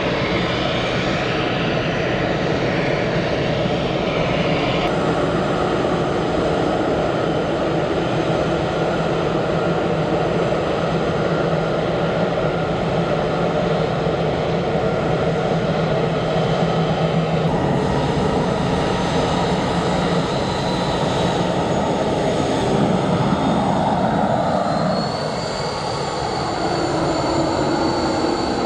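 Jet airliner engines running loudly and steadily, a dense jet noise with a whine in it. Near the end a whine rises in pitch and then holds.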